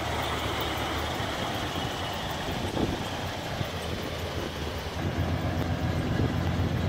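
The 5.6-litre (340 cu in) V8 of a 1967 Buick GS 340 idling with a steady low exhaust rumble, which gets heavier about five seconds in.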